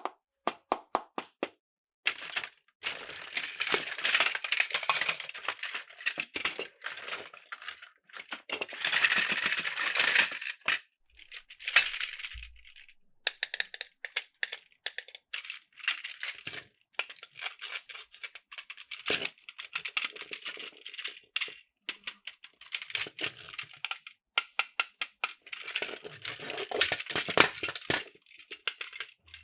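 Toy train cars being handled, with irregular clicks and bursts of rattling clatter.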